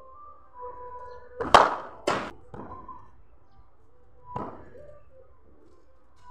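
Sharp knocks from cricket batting practice with a wooden bat: two loud cracks about half a second apart, then a fainter knock a couple of seconds later.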